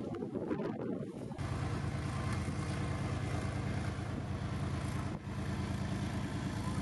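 Military vehicle's diesel engine running steadily at low revs. For about the first second and a half there is wind and muffled crowd noise instead.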